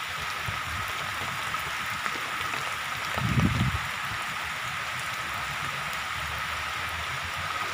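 Shallow, fast-flowing floodwater running across a submerged path: a steady rushing hiss. A short low thump, the loudest sound here, comes about three seconds in.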